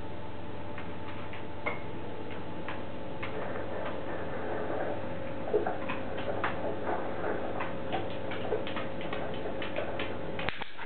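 Light, irregular clicks of a cocker spaniel's claws on a hard floor as she steps backwards, sparse at first and more frequent from about halfway, with one sharper click. A steady low hum runs underneath.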